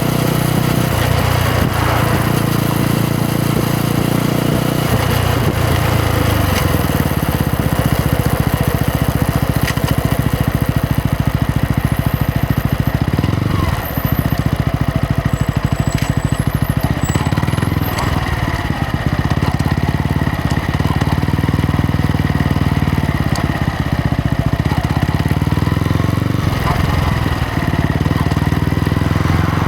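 Yamaha MT-125's single-cylinder four-stroke engine and exhaust running under way. Its pitch steps up and down several times with throttle and gear changes.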